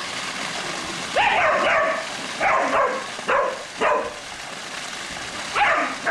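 Border collie barking, about five sharp barks starting about a second in, the first the longest, over the steady splash of a pool waterfall feature.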